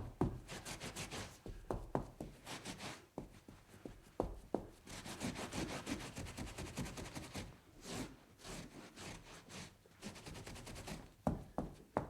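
Scrubbing and wiping on a tabletop: runs of quick back-and-forth rubbing strokes broken by short pauses, with a few sharp knocks in between.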